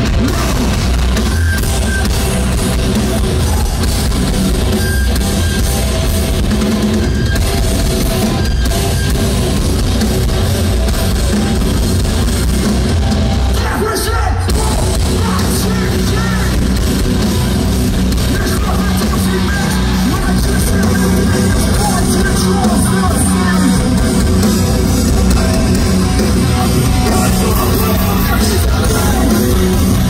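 A live heavy hardcore band playing loudly through a festival PA, heard from within the crowd: distorted electric guitar, drum kit and vocals, with a short break in the music about halfway through.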